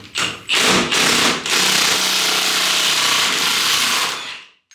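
Milwaukee impact wrench hammering on the pitman arm nut: a few short bursts, then a long continuous rattle that stops suddenly. The nut is being run off with the impact and its threads are stripping out.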